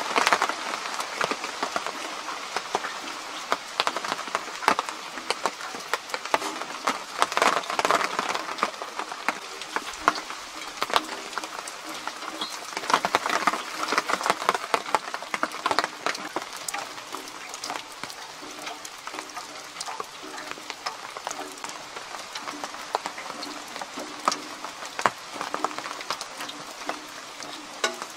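Steady rain falling in woodland, a hiss with many close drops pattering and dripping onto nearby surfaces.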